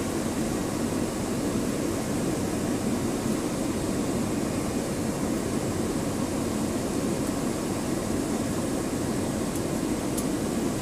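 Cessna 208 Caravan's single Pratt & Whitney PT6A turboprop engine and propeller running steadily, heard inside the cockpit on the landing approach.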